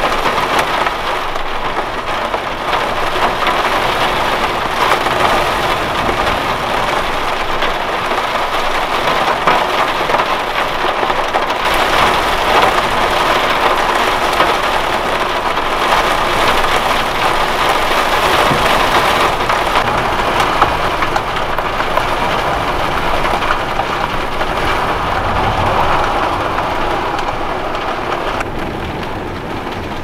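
Heavy storm rain pouring steadily in a constant loud hiss, easing a little near the end.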